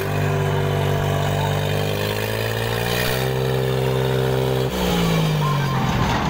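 Mahindra 265 DI tractor's three-cylinder diesel engine revved up to drive the hydraulic lift that tips the loaded trolley. The engine note climbs about halfway through, holds, then drops and falls away near the end.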